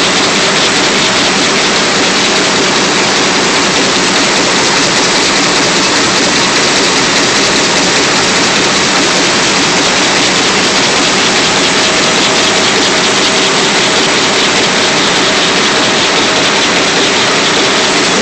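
Web printing press running at speed: a loud, steady machine din with a couple of faint steady hums underneath.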